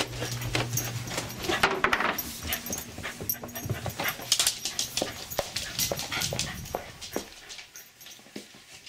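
A dog panting, with many short breaths; it grows quieter near the end.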